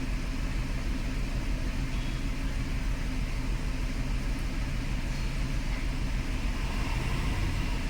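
Mercedes-Benz C200's four-cylinder petrol engine idling with a steady low rumble. It is misfiring, running on three cylinders because of a fault on the cylinder 4 ignition coil.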